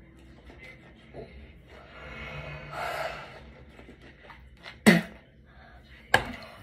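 Teeth being brushed with a toothbrush, a soft scrubbing, then two sharp knocks a little over a second apart near the end.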